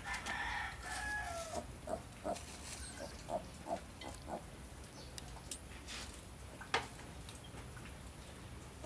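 Piglets grunting: a longer call with a falling pitch in the first second and a half, then a run of short grunts, with a sharp click near the end.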